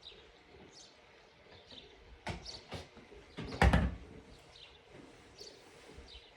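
A small bird chirping over and over, a short falling chirp about once a second, with two light knocks and then a louder thump about halfway through.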